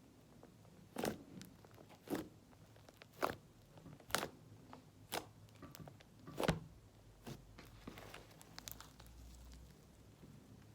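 Slime with fishbowl beads being squeezed and pressed by hand, giving sharp crunchy pops about once a second, fainter toward the end.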